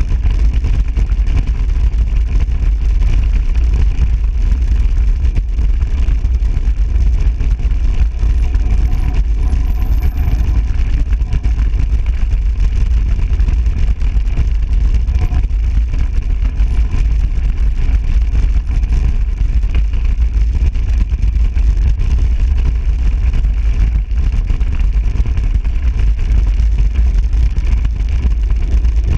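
Steady, loud wind rumble on the microphone of a mountain bike riding fast downhill off-road.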